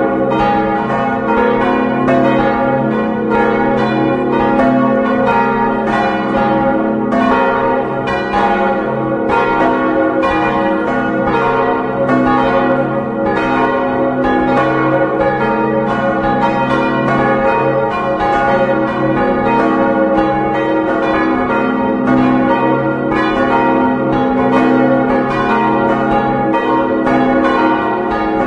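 Church bells swinging and ringing together, heard close up inside the belfry, their strokes overlapping in a continuous peal. They are a ring of four bells tuned to a Westminster chord; the largest is a 1906 Causard bell of about 1.9 tonnes on C♯, and another is an 1822 Bender bell on F♯.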